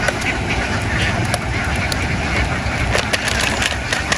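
A large flock of domestic ducks quacking all at once in a dense, continuous clamour, with a low rumble underneath.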